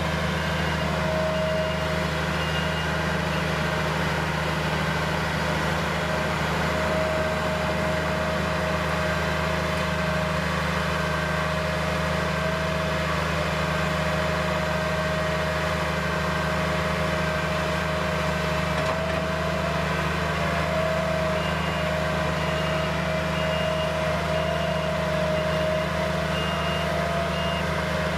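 New Holland skid-steer loader's diesel engine running steadily, with a constant high whine over it. A reversing alarm beeps in an even series for the first few seconds and again over the last several seconds.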